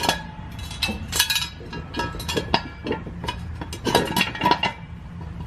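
Steel jack stand being set under the van, giving a run of irregular metallic clinks and knocks with short ringing.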